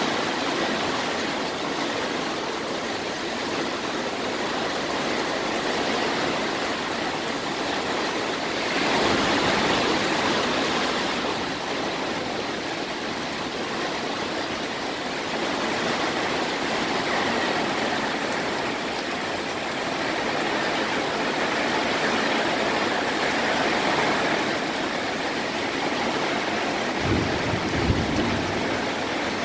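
Torrential thunderstorm rain pouring down in a steady, dense hiss that swells louder for a couple of seconds about nine seconds in. A couple of brief low thumps sound near the end.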